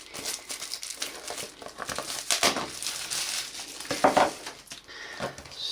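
Phone packaging being handled and opened: irregular crinkling and crackling of wrapping and the box.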